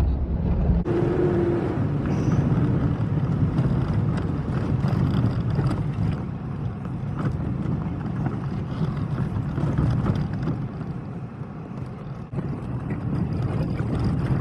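A vehicle engine running steadily while driving, with a low rumble throughout and a brief change in the sound about a second in.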